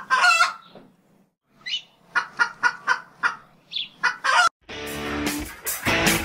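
A chicken clucking in a quick run of short clucks, about four a second, with a couple of rising squawks. About three-quarters of the way through, guitar music with a heavy beat kicks in and takes over.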